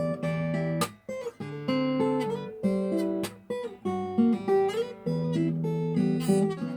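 Acoustic guitar playing a slow, gentle melody, single plucked notes over sustained chords, with a brief pause about a second in.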